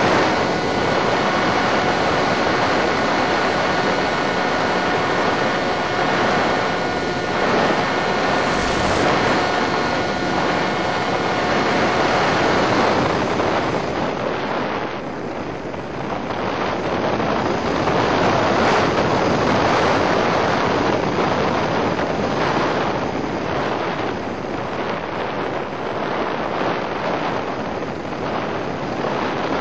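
Wind rushing over the on-board microphone of an EasyStar FPV model plane, with the electric motor's steady whine on top until about halfway through. There the throttle is cut back and the whine stops, leaving only wind noise that swells and eases as the plane glides.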